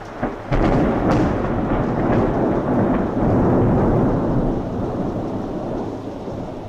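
Thunder: a sudden crack about half a second in, then a loud low rumble that slowly fades over the next few seconds.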